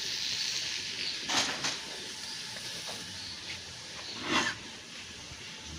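A bull snorting in short breathy bursts, about three of them, the last near the end, over a steady high hiss.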